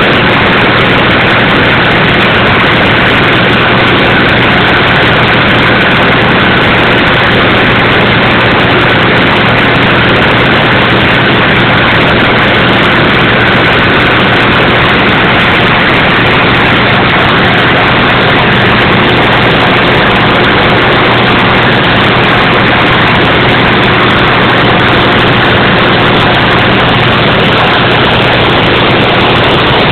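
Aqua-Dyne 40,000 psi ultra-high-pressure water-blasting unit running steadily: a loud, constant engine drone under a dense, even hiss.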